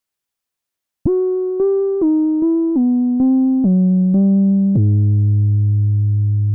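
Synthesizer keyboard notes: starting about a second in, a falling run of about eight short notes steps down in pitch, then one long low note is held.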